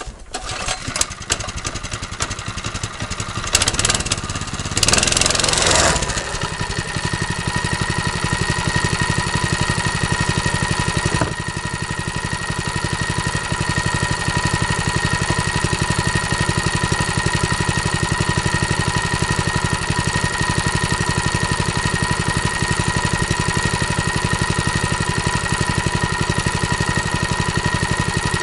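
A small petrol engine starts up, runs unevenly and loudly for the first few seconds, then settles about six seconds in into a steady idle.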